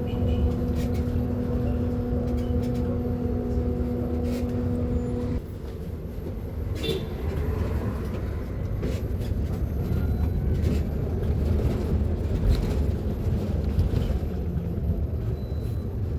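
Mercedes-Benz eO500U electric bus: a steady electric hum cuts off suddenly about five seconds in. A low rumble with scattered rattles and clicks carries on throughout.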